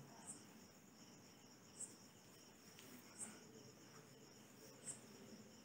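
Near silence: quiet room tone with a faint, high insect chirp repeating about every second and a half.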